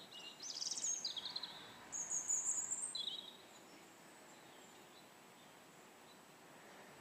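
Songbirds singing: several quick chirping and trilling phrases in the first three seconds, then only a faint steady outdoor hiss.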